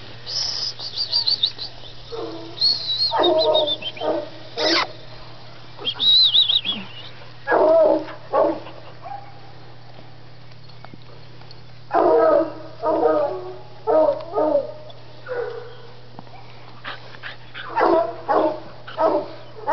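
Two-month-old pup barking at a possum it has treed, in several clusters of short barks, with a few high-pitched yelps in the first seconds.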